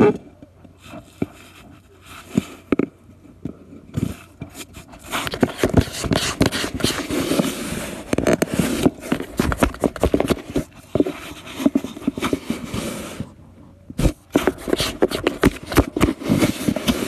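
A cat biting and rubbing at the torn hole of a cardboard box right against the microphone: cardboard scraping and crackling with many sharp clicks. Scattered clicks for the first few seconds, then dense scraping from about five seconds in, with a short pause near the end before it picks up again.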